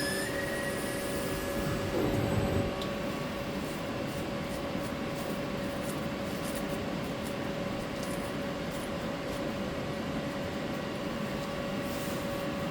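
CNC machine running while it cuts threads in PEEK plastic: a steady spindle tone over machining noise, with a louder stretch about two seconds in.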